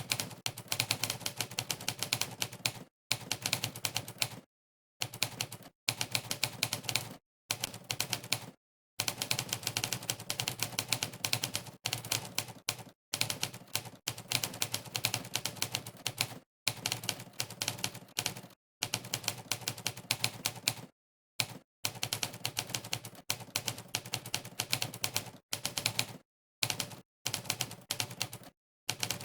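Monkeytype's typewriter keystroke sound effect: rapid typewriter key clacks, one per keypress, coming in runs of a few seconds broken by brief pauses of complete silence.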